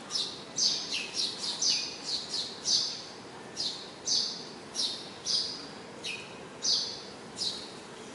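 Eurasian tree sparrows chirping: a lively run of short, sharp chirps, about two a second, over a steady background hiss.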